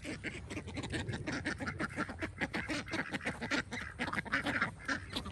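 A flock of white domestic ducks quacking loudly and continuously, many short calls overlapping in quick succession.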